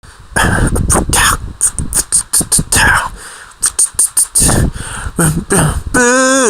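Beatboxed drum pattern, with kick-drum thumps and hi-hat clicks made by mouth as the backing of an a cappella song. About six seconds in, a voice starts singing a held note.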